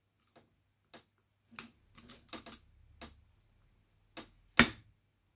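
Small screwdriver tapping and prying at a thin steel tab washer on a Suzuki GT750 carburettor, to bend it open so the nut can be undone. Irregular light metallic clicks and taps, the loudest near the end.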